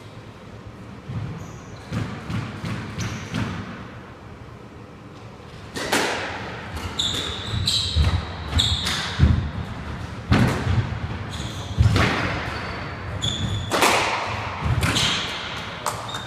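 Squash rally: the ball is struck by racquets and smacks off the walls and floor, with short high squeaks of shoes on the wooden court. The hits come thicker and louder from about six seconds in.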